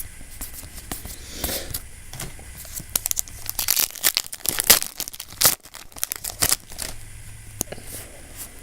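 Yu-Gi-Oh booster pack's foil wrapper being torn open and crinkled, a run of sharp crackling rips that is densest in the middle.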